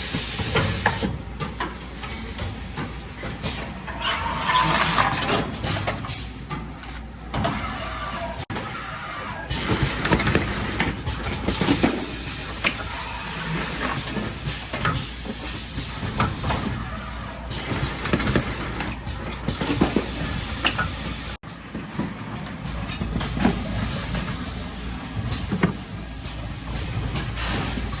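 Automatic pouch packaging line running, with the carton case form-fill-seal machine working. It makes an irregular clatter of mechanical clacks and knocks over a steady hiss.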